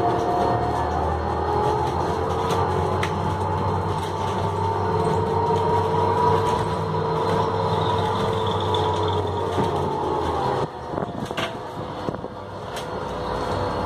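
City bus driving, heard from inside the passenger cabin: steady engine hum with a drivetrain tone that slowly rises and falls. About eleven seconds in the sound drops briefly, with a few rattling clicks, then builds again.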